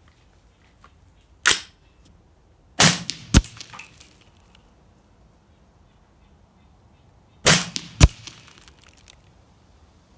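Suppressed gunshots from a PSA 300 AAC Blackout 8.5-inch AR pistol fitted with a Dead Air Sandman-L suppressor. There is one sharp report about a second and a half in, then a pair of reports half a second apart, and another such pair about four and a half seconds later.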